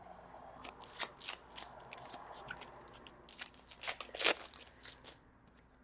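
Crinkling and crackling of a trading card pack's wrapper with cards being handled: a run of irregular sharp crackles, loudest a little past four seconds in.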